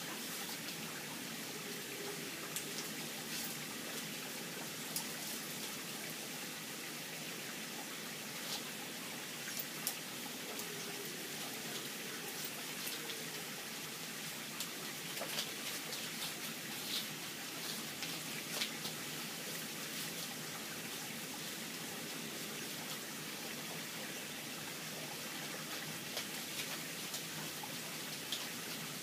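Steady rain falling, a constant hiss with scattered sharp ticks of drops.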